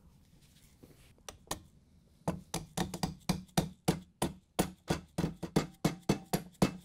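Rubber mallet tapping the trim ring onto a KitchenAid stand mixer's head: a few light taps, then from about two seconds in a steady run of about four sharp taps a second.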